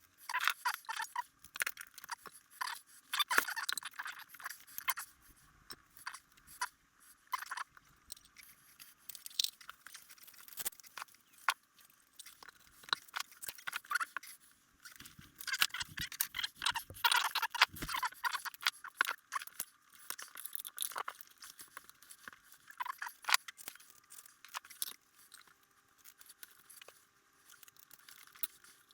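Hook-and-loop Velcro and guitar pedals being handled: irregular scratchy rasps, small tears and clicks, as the Velcro is cut, pulled and pressed on.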